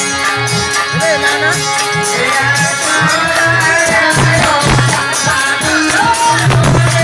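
Loud dehati folk dance song (nach geet) playing with a steady drum beat and held melody tones.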